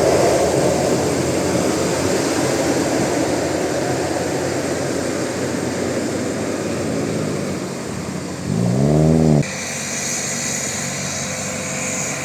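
Steady running noise of a bus engine and road. About eight seconds in, a loud horn blast about a second long sounds, its pitch rising and then falling. It cuts off suddenly, and a quieter, steadier engine sound follows.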